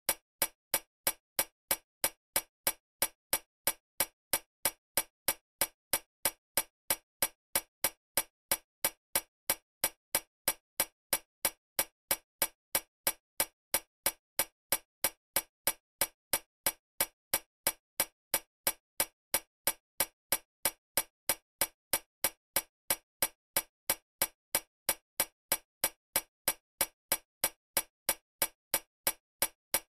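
Steady, evenly spaced ticking, about two ticks a second, like a clock ticking.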